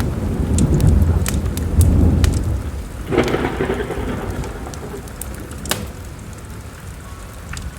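Thunder rumbling over steady rain, with a sharper peal about three seconds in that dies away, and the scattered pops of a crackling wood fire in a fireplace.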